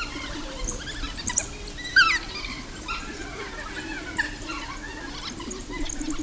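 African wild dogs giving a chorus of high-pitched squealing, twittering calls: many short falling squeaks overlapping, the loudest about two seconds in.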